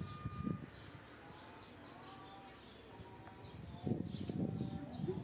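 Birds chirping and cooing in the background, with a few short low rustling sounds about half a second in and again around four seconds in.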